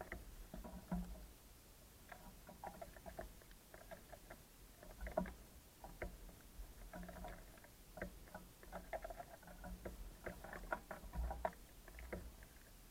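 Small birds pecking seed and hopping about on a bird feeder: irregular light tapping and scratching, with a few soft thumps.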